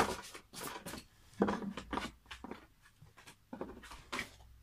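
A deck of tarot cards handled over a wooden table: a sharp tap at the start, then a string of softer taps and rustles as cards are gathered and drawn.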